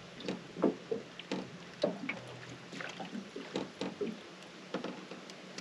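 Water lapping and slapping irregularly against the hull of an aluminium boat, with short splashy knocks over a faint steady hum.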